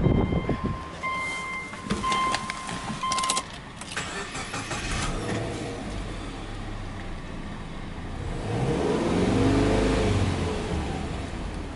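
Subaru Legacy Blitzen's EJ20 flat-four engine starting and then briefly revved to about 3000 rpm in neutral, the pitch rising and falling about two-thirds of the way through. At the start a dashboard warning chime beeps several times.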